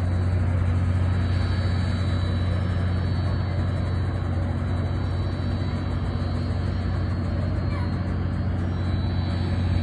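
Diesel engines idling: a steady, unchanging low hum.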